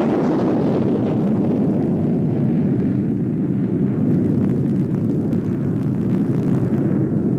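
A loud, steady low rumble with no clear tone. A fainter higher hiss over it thins out over the first few seconds.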